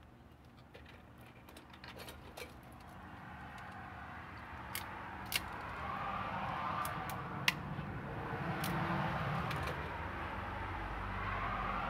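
Sharp little clicks of a handheld cable stripper and fingers handling the wires of an Ethernet cable, a few clicks about halfway through, the loudest two about two seconds apart. Under them a broad rush of background noise grows louder from about a third of the way in.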